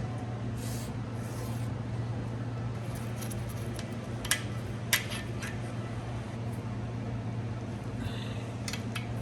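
A steady low hum with a few light ticks and two sharp clicks, about four and five seconds in, from hand tools working on the motorcycle engine.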